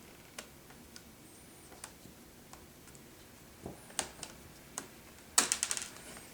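Small clicks and taps of laptop parts and tiny screws being handled while a replacement laptop screen is fitted, with a quick run of fading clicks about five seconds in.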